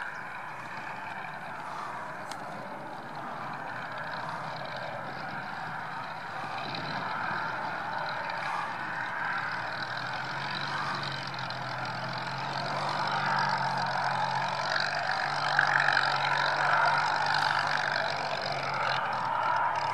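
Supermarine Spitfire PR.XI's Rolls-Royce Merlin V12 engine running at low taxiing power, a steady propeller-driven drone. It grows louder as the aircraft taxis closer and passes, and a deeper steady engine note comes through in the second half.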